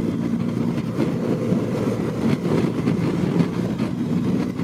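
BMW GS motorcycle's flat-twin engine running at a steady cruise while riding, heard with the rush of the ride.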